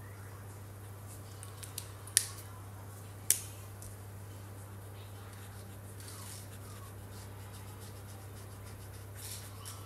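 Felt-tip marker tips scratching faintly on paper while colouring, with two sharp clicks a little over a second apart about two seconds in, the snap of a marker cap as the markers are swapped. A steady low hum sits under it all.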